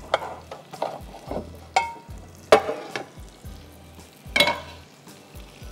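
A metal utensil scraping and clinking against a pan several times, the loudest about halfway through, over the sizzle of food frying.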